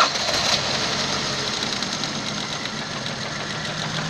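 Ford C-Max 2.0 engine idling just after starting, running steadily with a faint repeated ticking through it. The owner is investigating this as an engine knock.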